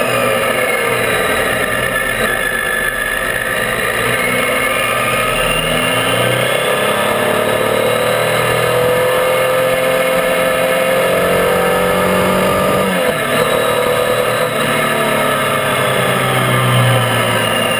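Triumph Tiger 800's three-cylinder engine running under way, its pitch rising and falling several times, over a steady rush of wind and tyre noise.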